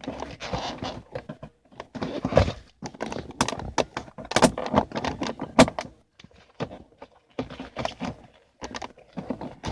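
Irregular clicks, knocks and scraping of hard plastic parts as a BMW E46 window switch module and its trim are handled and pressed into place.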